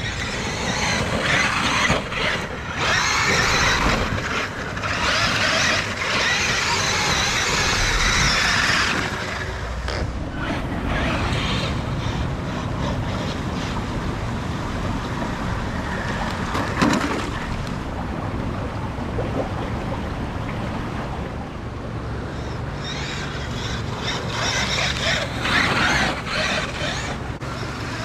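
Traxxas e-Revo RC monster truck being driven, heard as a loud rushing noise that surges through the first nine seconds and again near the end, with one sharp knock about halfway through.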